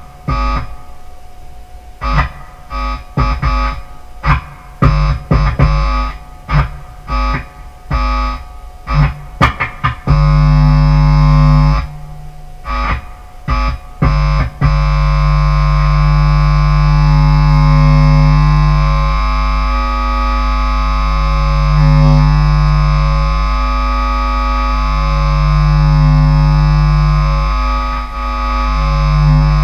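Bass guitar played through a distortion pedal into a small guitar amp, making noise music. For about the first ten seconds it plays short, choppy distorted stabs; after that comes a held, distorted bass note that swells and dips in loudness, broken briefly by a few more stabs.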